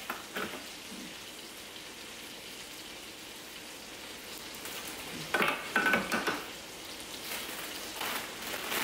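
Chicken pieces frying in butter in a hot cast iron pan, with a steady sizzle. About five seconds in there is a brief clatter of handling sounds.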